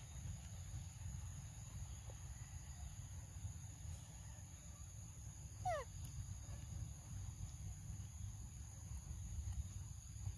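Forest ambience: a steady high-pitched drone and a low rumble, with one short animal call that falls in pitch about halfway through.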